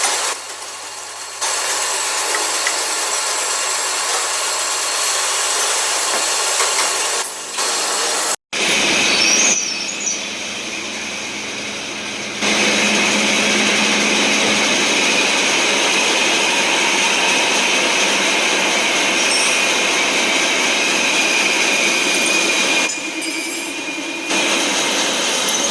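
Metalworking machine tools running and cutting metal: a loud, steady machining noise with a high whine, broken by a sudden cut about eight seconds in, after which the same kind of noise carries on.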